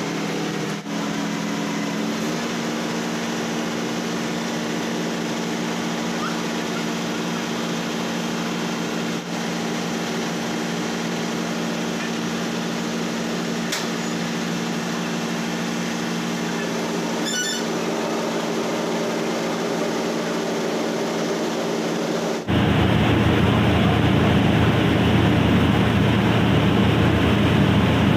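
Mobile rice mill machine running steadily, a continuous mechanical hum with a low steady tone. About two-thirds of the way through the sound abruptly becomes louder and deeper and stays so.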